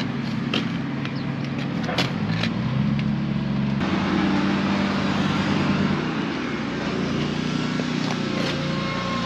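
Mower engine running steadily with a constant hum, with a few sharp clicks or knocks in the first three seconds.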